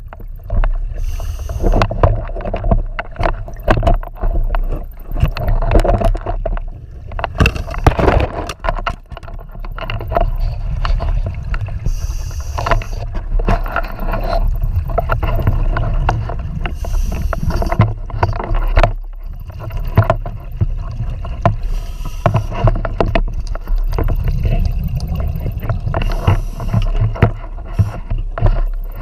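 Scuba diver breathing through a regulator underwater: a rush of exhaled bubbles about every four to five seconds over a steady low rumble, with scattered knocks and rubbing against the camera housing.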